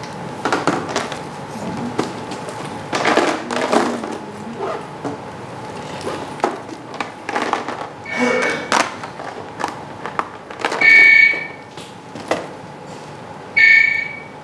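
Mobile phone ringing: short electronic ring tones, two or three of them about two and a half seconds apart, the loudest near the end. Before them come rustling and knocks of things being handled and a bag being packed.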